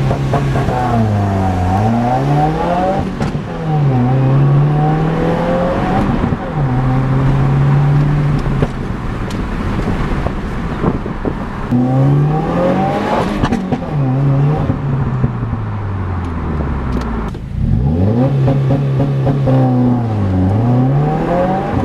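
2017 Subaru WRX's turbocharged 2.0-litre flat-four running a COBB Stage 1 91-octane tune, making hard acceleration pulls. The engine note rises and falls again and again through the gear changes, with a few stretches held steady and a long falling run-down near the middle.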